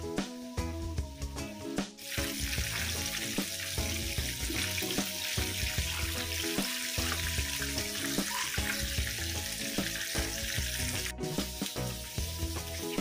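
Breaded chicken chunks deep-frying in hot oil, a steady sizzle that starts about two seconds in and drops out for a moment near the end. Background music plays throughout.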